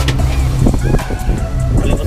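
Background music with a steady low bass.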